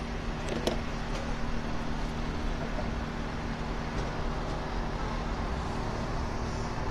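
Steady street background noise of passing traffic, with a low steady hum underneath and a few light clicks in the first second or so.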